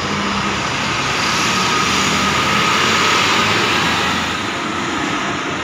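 Intercity coach driving past close by, its diesel engine running low under a hiss of tyres on the wet road. The hiss swells to its loudest about three seconds in, then eases as the coach pulls away.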